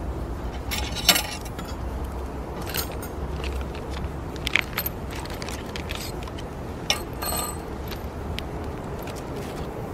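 Light metal clinks and rattles of a steel-rod grill rack and black iron plate being handled and set down, a few short sharp clinks spread through, the loudest about a second in, over a steady low rumble.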